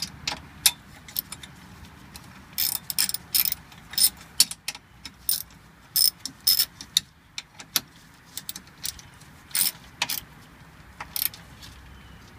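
Hand socket ratchet clicking in short, irregular runs as a bolt is tightened.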